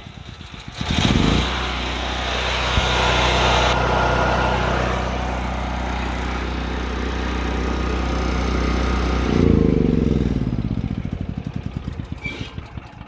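Firman T07571 tri-fuel generator's engine, fuelled by propane, starts about a second in and runs at a steady speed. About nine and a half seconds in it stops and winds down with slowing pulses.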